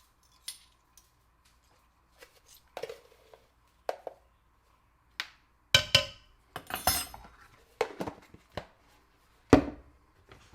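Kitchen utensils and dishes clinking and knocking while dry ingredients for waffle batter are measured out: scattered light clinks and taps, with a few louder knocks in the second half.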